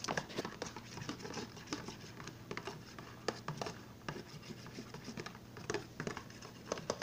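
A butter knife stirring a thick soapy mixture in a plastic container, scraping and tapping against the sides in quick, irregular clicks.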